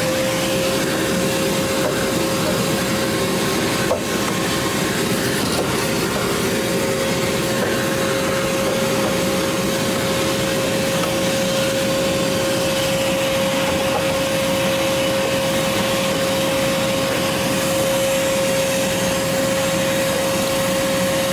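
Shop vac running steadily with a constant whine, its brush nozzle vacuuming packed dust out of a soda machine's condenser coil.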